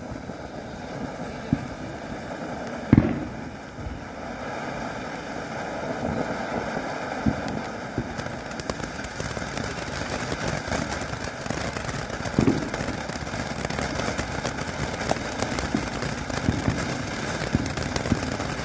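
Phantom Fireworks Radioactive Spark fountain burning with a steady rushing hiss of sparks and scattered crackles, with a sharp pop about three seconds in and another around twelve seconds.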